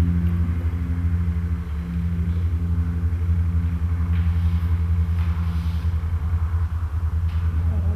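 A light aircraft's piston engine and propeller running, heard from inside the cockpit of a tailwheel plane rolling on the ground. It makes a steady low drone.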